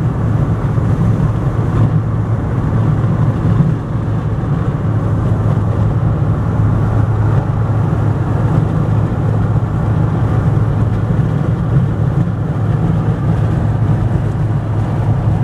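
Steady low drone of a running vehicle: a constant low hum over an even rush of noise, unchanging throughout.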